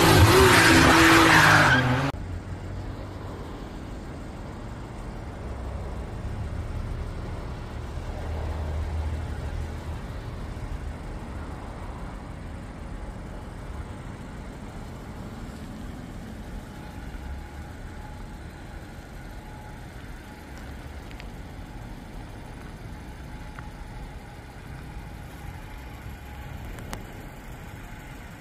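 A loud intro burst lasting about two seconds, then the Subaru Pleo's small four-cylinder engine idling with a steady low rumble that swells slightly a few seconds later.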